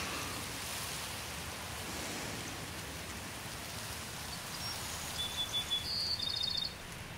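Soft, steady rushing noise of a nature-ambience background, with a bird chirping in a quick high trill about five to six and a half seconds in.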